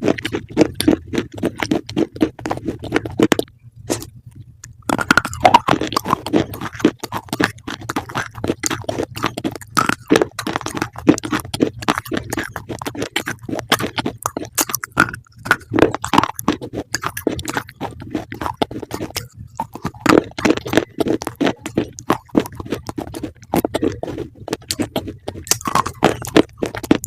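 Close-up crunching of something being chewed: rapid, irregular crisp crunches with a short break about four seconds in and another near the middle.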